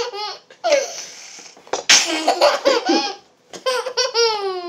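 A toddler laughing hysterically in several bouts: breathy gasping bursts and high-pitched laughs, ending in a long laugh that falls in pitch near the end.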